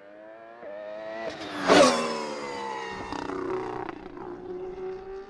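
A racing engine revs up with its pitch rising, passes loudest with a sharp crack about two seconds in, and then drops in pitch as it fades away, like a fly-by.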